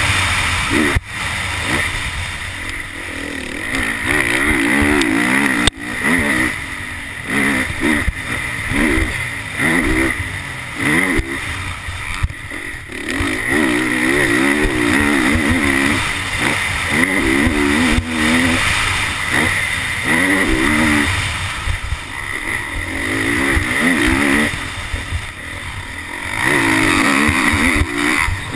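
Honda CRF450R single-cylinder four-stroke motocross engine, heard from a camera mounted on the bike, repeatedly revving up hard and backing off the throttle as it is ridden around a dirt track. A few sharp knocks cut through, the clearest about a second in and near six seconds.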